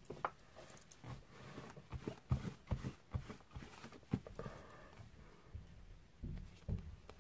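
Irregular light taps, knocks and rustles of hands handling a sheet of painted card and a cloth on a craft desk, with a few louder thumps among them.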